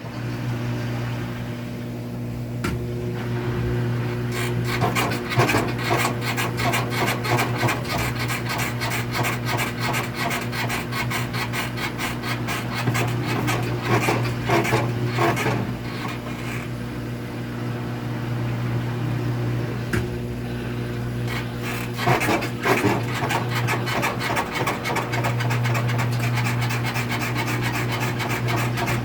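A rapid, rasping squeak or rubbing noise over a steady low machine hum. The squeak swells and fades several times.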